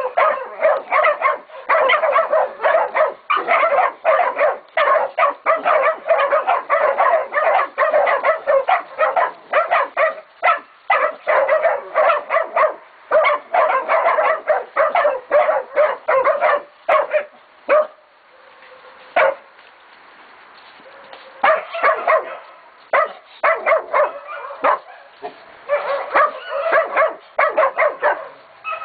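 Catahoula and Black Mouth Cur puppies baying a pig, barking rapidly and in overlapping bursts to hold it at bay. The barking breaks off for about three seconds past the middle, with a single bark in the gap, then starts up again.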